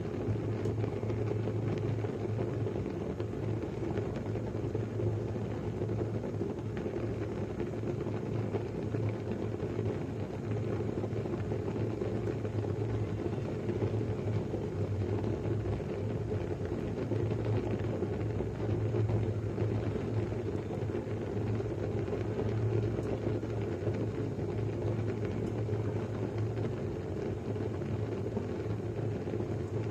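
Pot of rice at a steady boil, bubbling continuously with most of its sound low in pitch and no breaks or changes.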